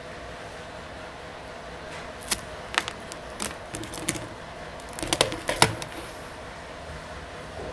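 Sharp, scattered clicks and taps of hand tools, wires and small parts being handled on an electronics workbench during soldering work. They come in a cluster from about two to six seconds in, over a faint steady hum.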